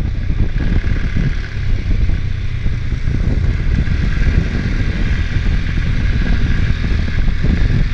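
ATV engine running steadily while the machine drives along a trail, a continuous low rumble with ride noise over it.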